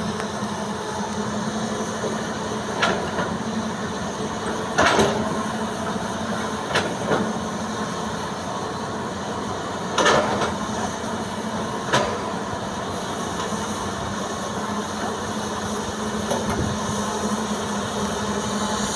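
Hitachi EX200 hydraulic excavator's diesel engine running steadily while loading fill soil into a dump truck, with several sharp knocks a few seconds apart, the loudest about five and ten seconds in.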